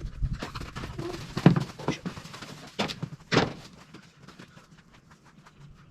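Irregular knocks and clicks of bike parts and wiring being handled: a sharp knock about a second and a half in, two more around three seconds in, then only faint ticks.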